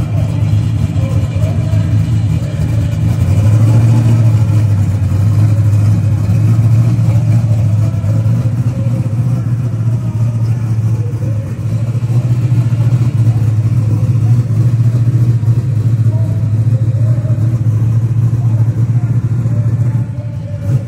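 Drag-race 1997 Chevrolet Camaro's engine idling loudly and steadily, with a low, even note.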